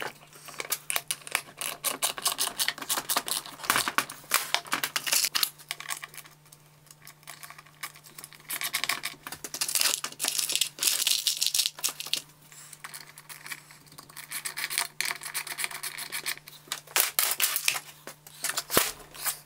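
Workbench handling noise: irregular clicks, rattles and scraping as wiring and parts are handled on a metal-topped bench, over a faint steady hum.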